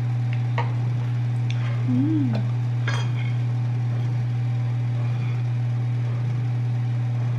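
Light clinks and scrapes of a spoon and a slotted spatula against a ceramic bowl and plate, a few separate ones in the first three seconds, over a steady low hum.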